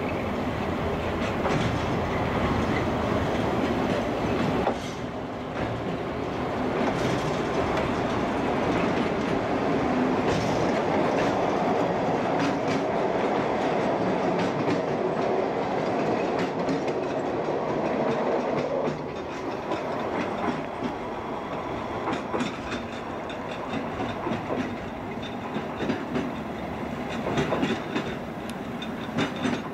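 Track maintenance train, a yellow motor car with rail-carrying cars, moving slowly through the station with its engine running and its wheels clacking over the rail joints. The noise drops a little about five seconds in and again near twenty seconds.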